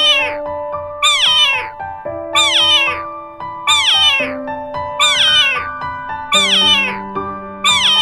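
A cat meowing over and over, about once a second, the same falling call each time, over slow background music with long held notes.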